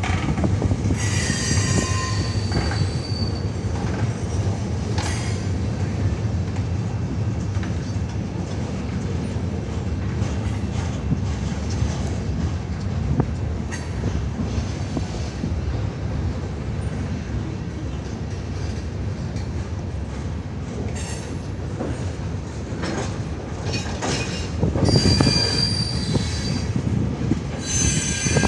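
Freight train rolling past with a steady rumble, its wheels squealing in high thin tones about a second in and again near the end.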